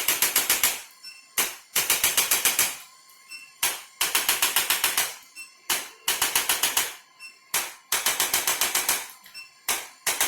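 Rapid runs of sharp mechanical clicks, about eight a second, each run lasting about a second and repeated every two seconds or so.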